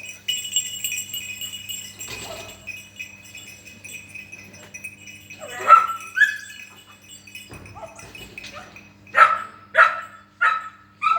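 Dog barking in excitement during a rabbit chase: a single rising yelp about six seconds in, then a run of four sharp barks roughly two thirds of a second apart near the end.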